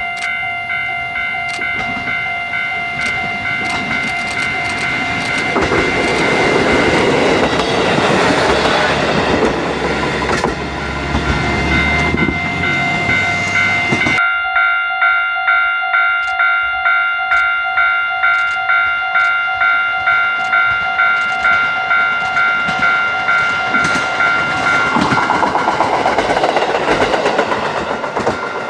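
A level crossing warning bell rings about twice a second throughout. A JR Hokkaido KiHa 40 diesel railcar runs past from about six to fourteen seconds in, with engine and wheel noise. After a cut, the bell carries on and another KiHa 40 draws near toward the end.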